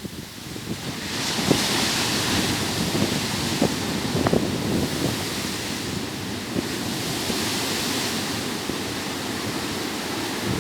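Ocean waves breaking on a beach, the hiss of surf swelling about a second in and again a few seconds later. Wind buffets the microphone with low thumps.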